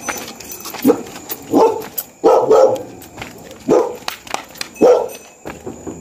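A dog barking repeatedly, about five or six barks spaced irregularly roughly a second apart.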